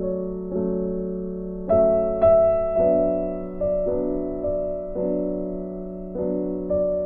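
Background music: soft piano or electric piano playing slow, sustained chords that are struck and left to fade.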